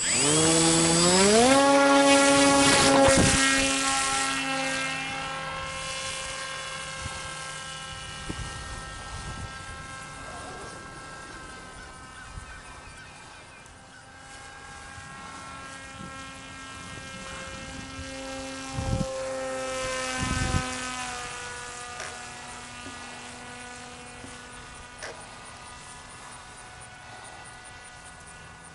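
Model flying wing's electric motor and propeller spinning up with a rising whine at launch, then running at a steady pitch that fades as the plane flies away. It grows louder again as the plane passes back closer past the middle, with two sharp thumps there, then fades again.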